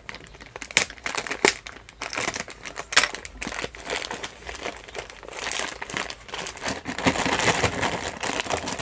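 A clear plastic parts bag crinkling and crackling as hands work it open and pull out motorcycle coupling rubbers. Sharp crackles come about a second in, at a second and a half and at three seconds, and the crinkling is denser in the last few seconds.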